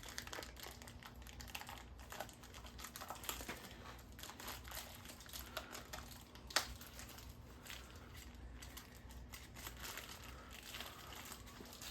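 Faint crinkling of packaging and light clicking as engine main bearing shells are handled and set in place, with one sharper click about six and a half seconds in.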